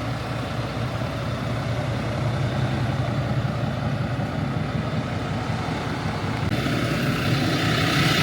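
Farm tractor's diesel engine running steadily, getting a little louder and harsher in the last couple of seconds.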